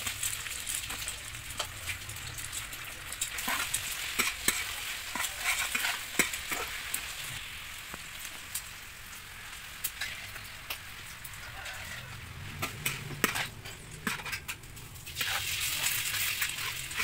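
Stir-frying in a hot steel wok: oil sizzling steadily around chopped garlic, greens and then noodles, with frequent sharp clinks and scrapes of a metal spatula against the wok. The sizzle eases in the middle and grows louder again near the end.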